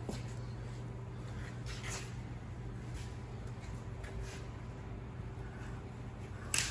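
Faint clicks and knocks of metal fire-hydrant parts being handled and fitted together, the loudest near the end, over a steady low hum.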